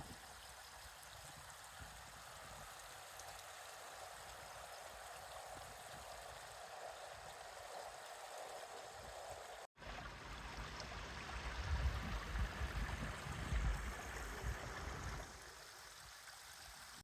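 A small river running with a steady rush of water. After a cut about ten seconds in, irregular low rumbles swell over the water sound for several seconds.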